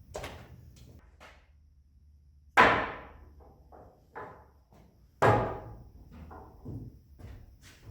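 Two loud, sharp knocks about two and a half seconds apart, each ringing off briefly, with lighter knocks and clatter around them.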